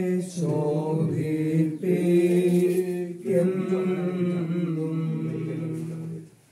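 Chant-like singing: a voice sings a slow melody with long held notes over a steady low drone, fading out near the end.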